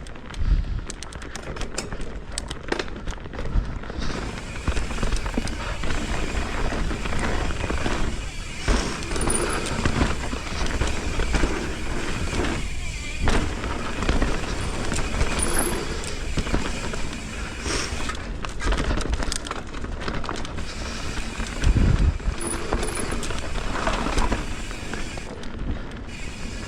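Mountain bike riding down a dirt trail: continuous tyre and wind noise with frequent rattles and knocks from the bike over rocks and roots, and a few heavier thumps.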